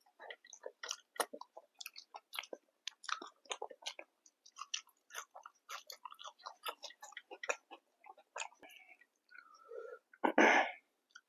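Close-miked chewing of food, with rapid wet mouth clicks and smacks, ending in a short louder burst of mouth noise near the end.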